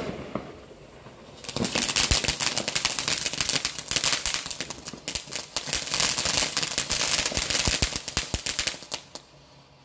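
Ground fountain firework crackling: a sharp pop right at the start, then a dense, rapid run of cracks and pops that fades away near the end.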